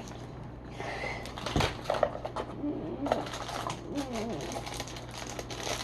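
Plastic snack wrappers crinkling and rustling as packets are handled, with faint, quiet voices underneath.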